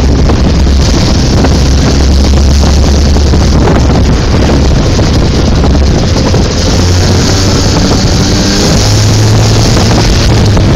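Modified Piaggio Ape 125 three-wheeler's engine running loud under way on a dirt track, with wind on the microphone. Its steady low hum climbs in pitch about halfway through and again near the end as the engine speeds up.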